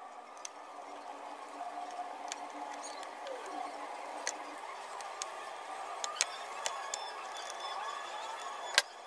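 Small screwdriver turning out the tiny screws that hold a laptop's battery, heard as faint scraping with scattered light clicks and a sharper click near the end.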